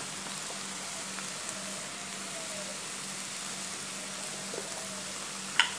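Chopped onions frying in oil in a pan, a steady sizzle under a dollop of tomato paste. A single sharp click near the end.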